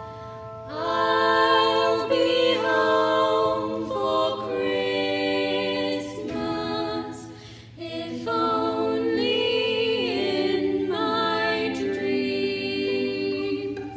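Two female singers singing a slow song in held, sustained phrases, with a short break about seven or eight seconds in.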